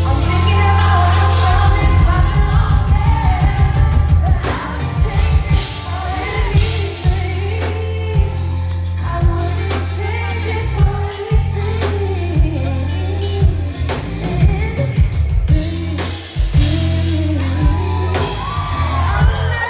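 Female R&B singer singing live into a microphone over a band, with a heavy bass line and regular drum hits, heard from the audience.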